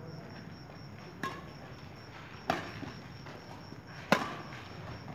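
Badminton racquets hitting a shuttlecock in a rally: three sharp cracks about a second and a half apart, the last and loudest about four seconds in. Crickets chirp steadily behind.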